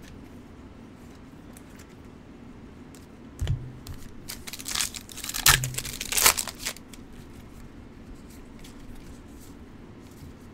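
Trading-card packaging being torn open and crumpled: a few seconds of loud tearing and crinkling starting about a third of the way in, with a couple of low thuds.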